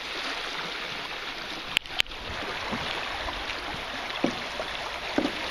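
Paddling on a flowing creek: a steady rush of moving water with a few small paddle splashes. Two sharp knocks come about two seconds in, a fifth of a second apart.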